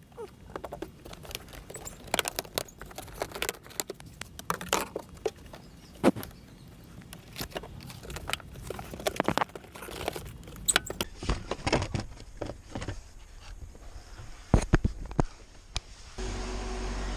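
Car interior trim and wiring being pulled apart and handled: an irregular run of plastic clicks, rattles and rustling, with a few sharper knocks near the end. About a second before the end a steady hum starts.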